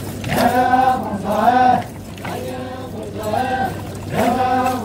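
Group of voices chanting together in a traditional Sangtam Naga dance chant, in short repeated phrases.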